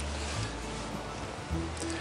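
Background music with low bass notes that change about every second.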